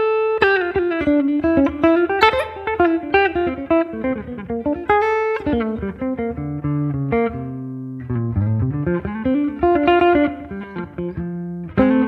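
Semi-hollow electric guitar played clean with a light pick stroke: a single-note jazz-style line of quick picked notes, with a few longer-held low notes partway through.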